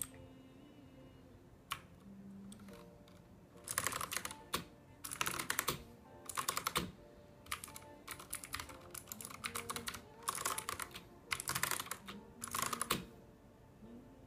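Typing on a Ducky One mechanical keyboard with clicky blue switches: a couple of single key clicks, then several quick runs of clattering keystrokes from a few seconds in until near the end. Faint music plays underneath.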